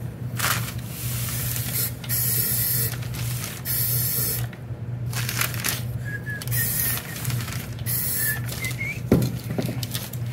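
Aerosol spray-paint can of high-heat flat black coating worked through a trigger grip, hissing in a series of short bursts. A single sharp knock about nine seconds in.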